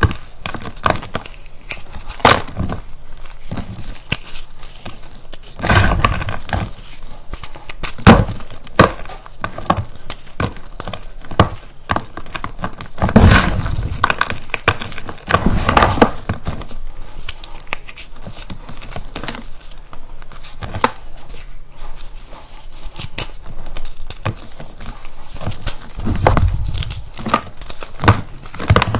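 Purple reformed gym chalk crunching and crumbling in the hands: chunks and powder sifted through the fingers and dropped onto a pile, giving many sharp crackles and clicks, with a few heavier dull thuds as larger pieces fall or are crushed.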